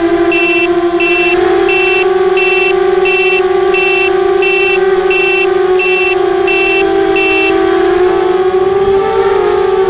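Nighthawk 250 racing quadcopter's motors and propellers whining steadily in flight, the pitch shifting a little with throttle. A high electronic beeper sounds about three times every two seconds and stops about seven and a half seconds in.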